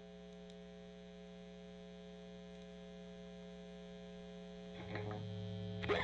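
Steady mains hum from an idle electric-guitar amplifier and fuzz pedal rig, with the guitar not being played. A few faint string sounds come in near the end, just before playing resumes.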